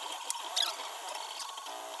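MakerBot Replicator 2X 3D printer's stepper motors driving the extruder and build platform mid-print: quick high-pitched chirps and squeaks over a steady whine, with a short falling glide about half a second in.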